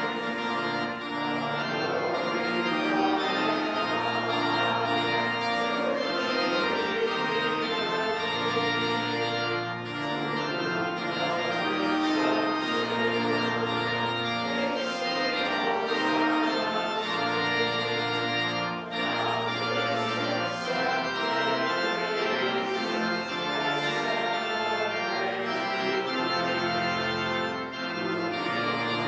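Organ playing a hymn, with long held bass notes that change every second or two under sustained chords.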